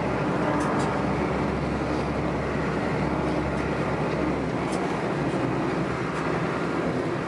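Steady rumble of a moving vehicle heard from on board, with a low engine drone underneath.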